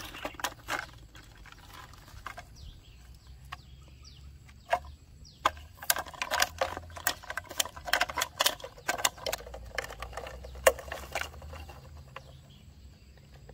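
A plastic drink bottle being handled and its screw cap taken off while hands work through grass: a run of irregular sharp clicks and crackles, thickest in the middle stretch.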